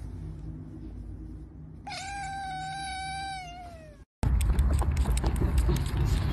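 A tabby kitten meowing once: one long meow about two seconds in, held steady and then falling in pitch as it ends. After a sudden cut about four seconds in comes a louder, dense clicking and rustling.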